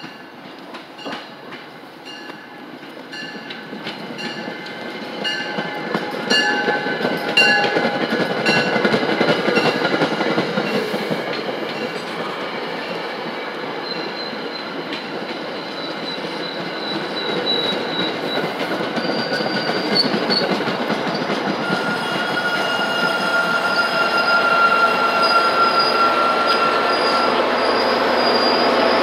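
MBTA push-pull commuter train approaching and rolling slowly past, cab car first: wheels clicking over rail joints, then a steady rolling rumble with high-pitched wheel squeal. It grows louder toward the end as the locomotive pushing at the rear comes alongside.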